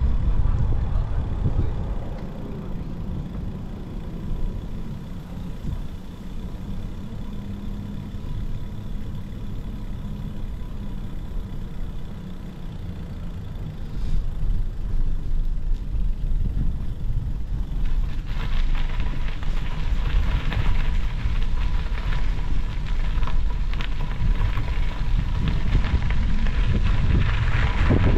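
Wind buffeting the microphone of a walking camera, a heavy low rumble. From about two-thirds of the way through, footsteps crunching on a gravel path join in.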